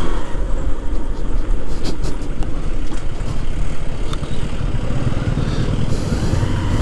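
Motorcycle engine running at low speed with the engines of tourist jeeps close by: a steady low rumble. The jeeps have a loud, bus-like engine sound.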